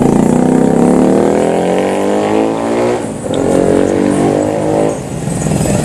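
A vehicle engine accelerating, its pitch climbing for about three seconds. After a short break it holds a higher steady note, like a gear change followed by cruising.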